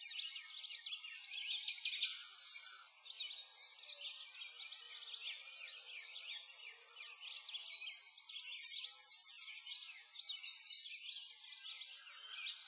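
A dense chorus of small birds chirping and twittering, many quick high chirps overlapping throughout, with the level swelling and dipping every second or two.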